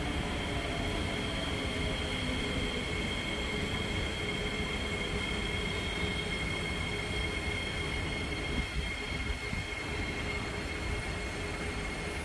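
Singapore MRT train running, a steady low rumble with two high-pitched tones held almost throughout that fade out near the end.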